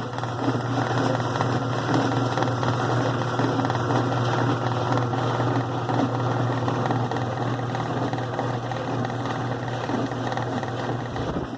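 Kenmore 70 Series direct-drive washing machine running on a slow setting: a steady low motor hum with a rough, busy mechanical noise over it. This is the fault noise, which the repairman takes for a water pump that is dirty inside.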